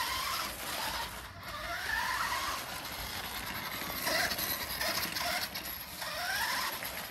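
Nikko Firehawk radio-controlled toy car running over brick pavers, its small battery-powered electric motor and gears whining and rattling. The whine rises in pitch each time it speeds up, several times.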